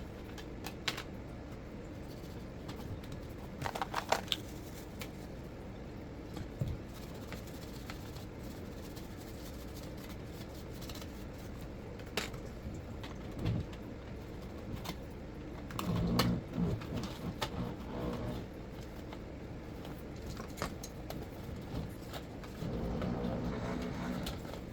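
Scattered light clicks, taps and rustling of hands handling the small parts of a disassembled NutriBullet blender base, with a quick run of ticks about four seconds in and duller knocks and shuffling later on.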